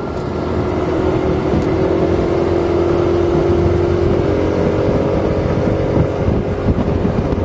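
Steady drone of a vehicle's engine and road noise while driving, with a steady hum that gains a higher tone about halfway through.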